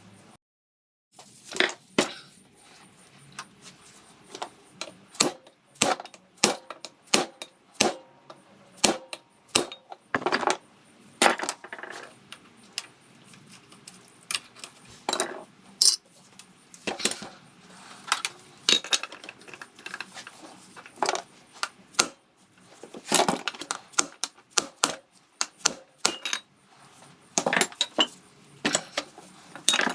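Tools and metal engine parts clinking and clattering as a Vespa PX150E engine is taken apart: irregular sharp metallic knocks, sometimes several a second, with a brief silence just after the start.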